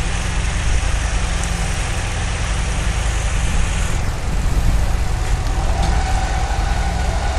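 Fire engine's diesel engine running steadily, a low rumble, under a broad hiss that thins a little about four seconds in.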